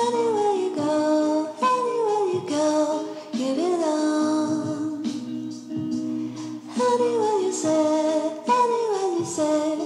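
Background music: a song with a sung melody in short phrases whose notes slide downward, over a steady accompaniment.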